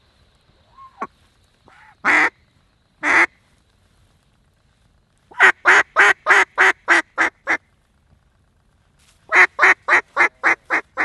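Mallard hen quacks blown on a duck call right at the microphone: two long quacks, then two runs of eight or nine quick, evenly spaced quacks that fade toward the end of each run, a descending hail-and-greeting cadence used to turn circling mallards toward the decoys.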